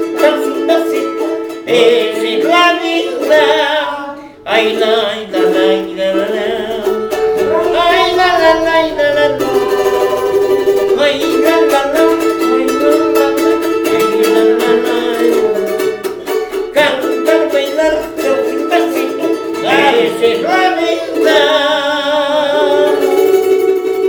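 Charango strummed rapidly in a steady tremolo of chords, with a man singing phrases over it that come and go.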